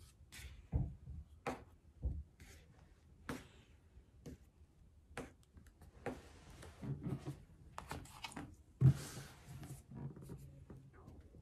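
Knife spreading lightweight spackling over a round box as fake cake frosting: soft scrapes and scattered light taps and clicks, with one louder knock about nine seconds in.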